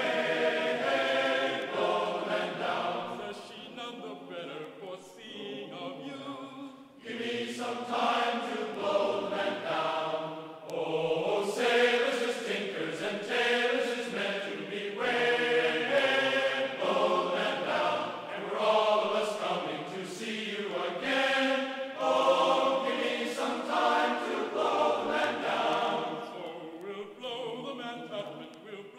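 Background music: choral singing, voices holding long notes that move from chord to chord.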